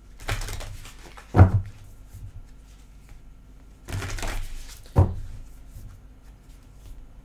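Tarot cards being riffle-shuffled by hand twice: each riffle is a brief rattling flutter of cards, followed about half a second later by a short sharp knock as the deck is pushed together and squared.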